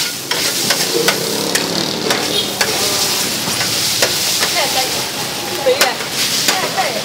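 Noodles stir-frying on a flat griddle with a steady sizzle, while a metal spatula scrapes and clacks against the griddle plate again and again as it tosses them.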